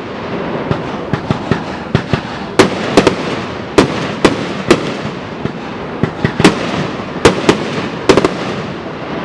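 Fireworks going off: a rapid, irregular series of sharp bangs over continuous crackling, with several bangs close together about 3 s and 8 s in.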